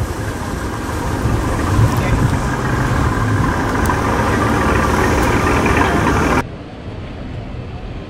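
C5 Corvette's 5.7-litre V8 running at low speed as the car rolls slowly past. The engine sound cuts off suddenly about six and a half seconds in, leaving quieter background voices.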